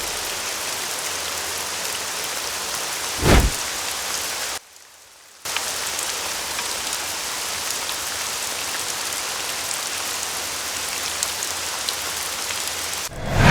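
Steady rain hiss, like rain falling on a surface, with a short low boom about three seconds in and another swelling low boom near the end. The rain cuts out abruptly for under a second a little before the five-second mark, then resumes.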